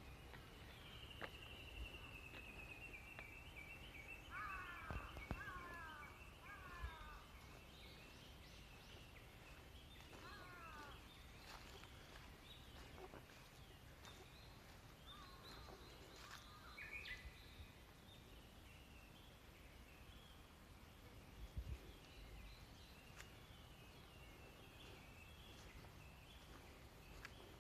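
Faint birds calling: a long run of quick high notes in the first several seconds, and groups of short down-slurred calls, with a few soft thuds.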